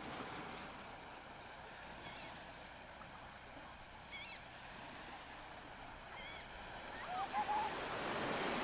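Soft harbour ambience: a steady wash of waves with short high bird calls about every two seconds and a lower wavering call near the end, as the surf swells.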